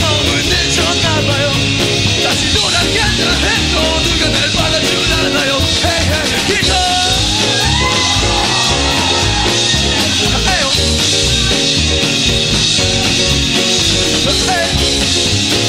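Live rock band playing: a lead vocalist sings over electric guitars, bass, acoustic guitar and a drum kit.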